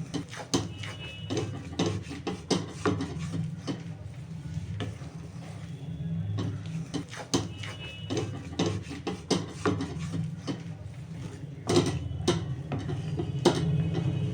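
A utensil stirring and scraping a thick ginger, date and jaggery mixture around a kadhai: irregular scrapes and knocks against the pan over a low steady hum.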